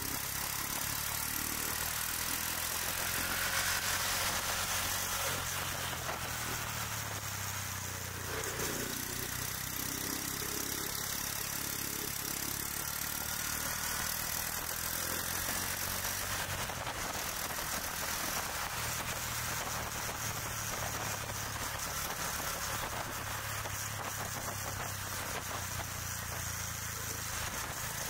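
Motor scooter engines running in moving city traffic. It is a steady engine hum that drifts up and down in pitch as the riders speed up and ease off, over a constant hiss of road noise.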